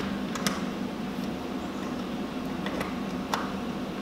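A few light metallic clicks and ticks as stainless steel screws are driven by hand with a screwdriver, the loudest about three seconds in, over a steady low hum.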